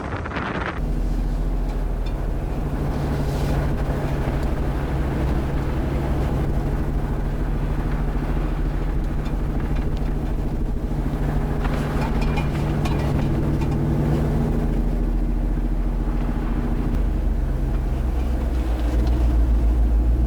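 A 2021 Jeep Wrangler Rubicon 392's 6.4-litre HEMI V8 running steadily as the Jeep drives along, a low drone with some road and wind noise over it. The lowest part of the drone grows stronger about 17 seconds in.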